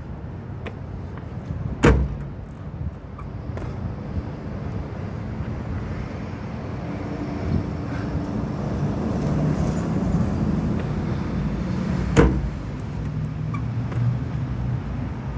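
Road traffic going by, with a vehicle's engine swelling through the middle. Two sharp thuds land about ten seconds apart, the loudest sounds: landings during burpee-to-box-jump reps.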